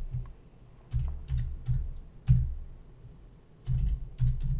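Computer keyboard being typed on: a few keystrokes about a second in, a single one past the middle, and a quick run of keys near the end.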